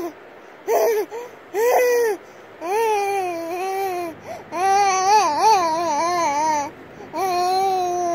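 Baby vocalizing: three short calls, then three longer, drawn-out vowel sounds with a wavering pitch, babbling rather than crying.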